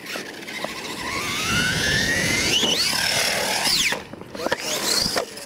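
RC monster truck's motor whining under throttle, climbing steadily in pitch for about two seconds as the truck speeds up, then dropping off about four seconds in before a shorter second rise near the end.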